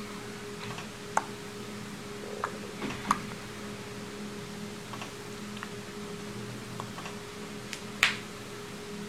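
Automatic blood-pressure cuff squeezing the arm: a steady low hum, with scattered soft clicks and taps. A sharp click about eight seconds in is the loudest.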